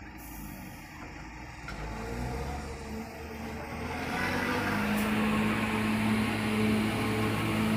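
Diesel engine of a Hino 500 dump truck pulling away and driving closer, its steady hum growing louder over the first half and holding loud after that.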